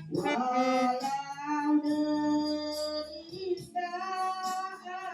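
A voice singing a slow Indonesian song, long held notes that slide into one another.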